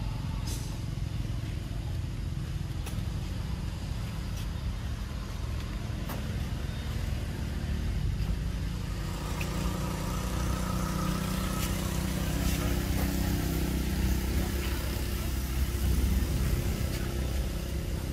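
A motor vehicle's engine running as a steady low rumble, growing louder about halfway through.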